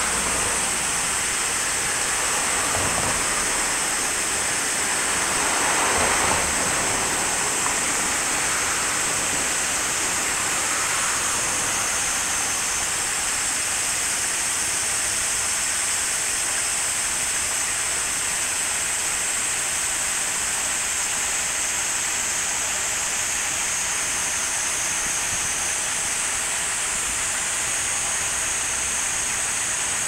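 Water rushing steadily over a series of low stepped weirs in a small river, a constant even splashing roar, briefly louder about six seconds in.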